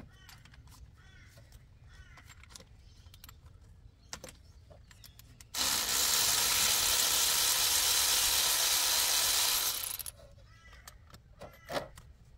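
Cordless electric ratchet running for about four seconds, unscrewing a spark plug; it starts abruptly about halfway in and cuts off sharply.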